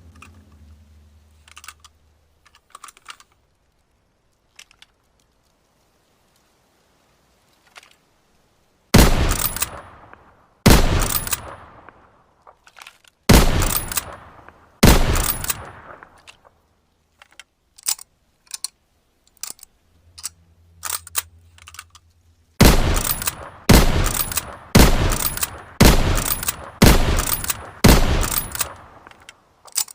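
Lever-action rifle firing: four single shots a second or two apart, then a quick string of about seven shots roughly one a second, each with a long echoing tail. Small clicks of the lever being worked come between the shots, and a low hum is heard at the start and again just before the fast string.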